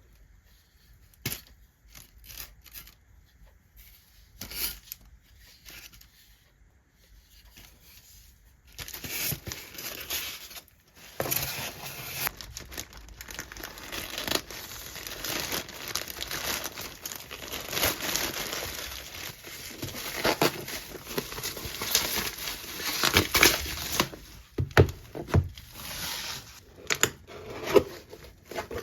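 Scattered light clicks, then from about nine seconds in a dense, dry rustling and scraping with sharper crackles, like material being handled, torn or rubbed.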